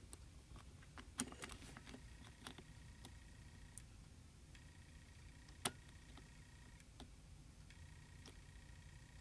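Faint, scattered metallic clicks of a hook pick and tension wrench single-pin picking an Abus Diskus padlock, with a small run of clicks a little over a second in and one sharper click about five and a half seconds in.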